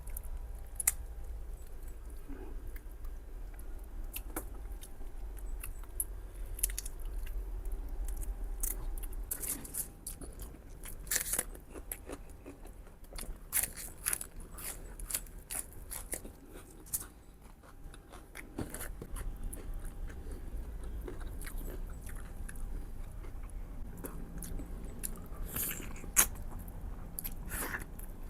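A person chewing and biting food close to the microphone: wet mouth clicks, smacks and crunches come irregularly throughout, clustering around the middle and near the end.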